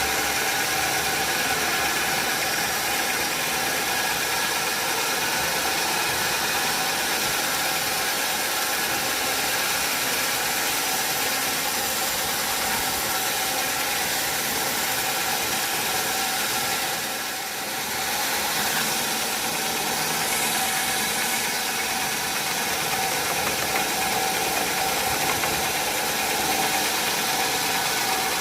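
Sawmill machinery running steadily: a continuous mechanical noise with several steady tones, dipping briefly about seventeen seconds in.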